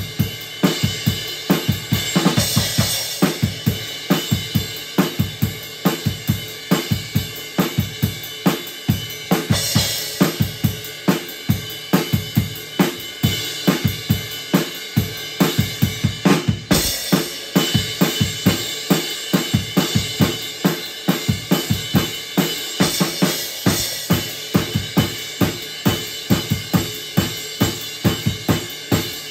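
Acoustic drum kit with Zildjian cymbals played in a steady groove: bass drum, snare and hi-hat with cymbals ringing over them, and one harder accent a little past halfway.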